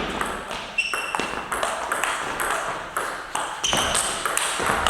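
Table tennis ball clicking against bats and table in a quick run of hits, a few a second.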